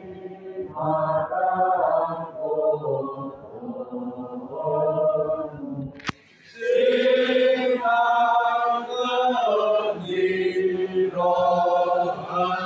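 A group of people singing a hymn together in slow, held notes. There is a sharp click and a brief break about six seconds in, then the singing goes on.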